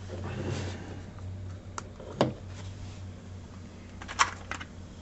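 Light clicks and taps from a hand handling a nanoVNA on a tabletop: two single clicks about two seconds in and a quick cluster of clicks a little after four seconds, over a low steady hum.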